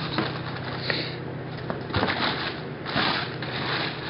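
Clear plastic packaging bag and foam insert rustling and crinkling in bursts as a boxed welder is unpacked by hand, with a light knock about two seconds in.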